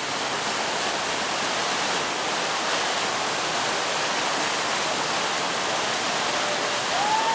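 Whitewater of a river rapid rushing loudly and steadily. A single held high-pitched tone starts near the end.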